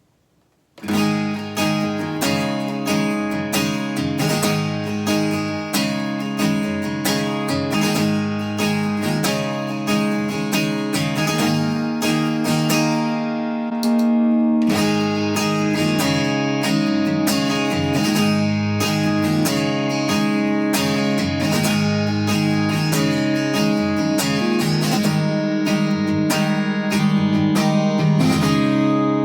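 Taylor 210e acoustic-electric guitar strummed in chords, played through a Wampler Ego Mini compressor pedal into a Boss Katana amp with added reverb. It starts about a second in with evenly spaced strums; about halfway through the playing becomes denser and steadier in level.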